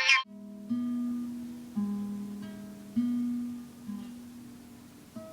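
Acoustic guitar picked slowly, single notes about a second apart, each ringing out and fading before the next.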